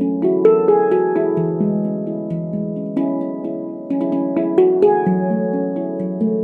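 Veritas Sound Sculpture 18-note stainless steel handpan in F# Pygmy, played with the hands: a steady stream of struck notes, several a second, each ringing on and overlapping the next over a low bass tone.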